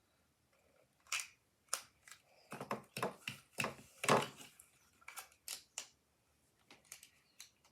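Plastic LEGO pieces clicking and knocking as they are handled and pressed together: a string of irregular sharp clicks, the loudest a few seconds in.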